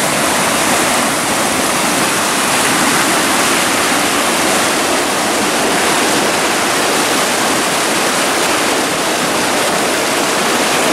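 Brown floodwater rushing down a swollen creek in a steady, unbroken rush, with white water churning through the trees.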